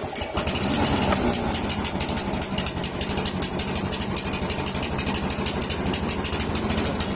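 Snapper walk-behind lawn mower's small engine running steadily at low throttle, just after catching on a single pull. It is running smoothly, a sign that its misfiring and hard starting are cured.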